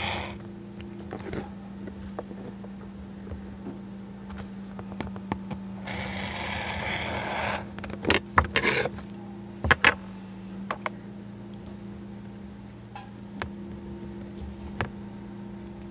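Hobby knife blade drawn along a steel ruler, scoring masking tape on a cutting mat: a scraping cut lasting about a second and a half around six seconds in. It is followed by a run of sharp metallic clicks and clinks as the steel ruler and square are shifted and set down, with single clicks near the end.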